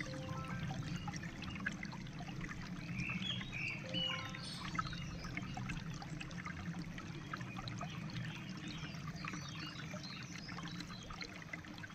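Shallow, clear stream water trickling and lapping over rocks, a steady babble with many small splashy ticks, and a few short bird chirps about three seconds in.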